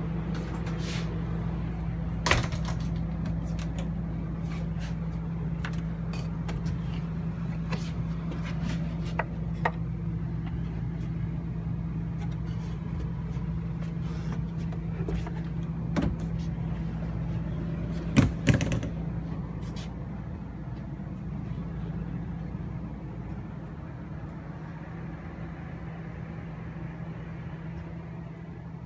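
Steady low machine hum inside a motorhome, fading toward the end. A few sharp knocks break it, the loudest pair about eighteen seconds in.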